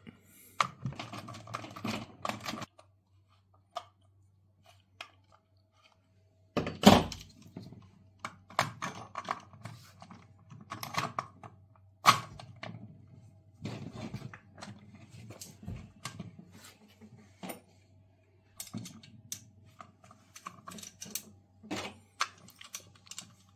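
Small metal clicks, taps and knocks from the chainsaw's side cover and bar nuts and a steel T-wrench being handled and fitted during assembly, with a few louder thunks, the loudest about seven seconds in.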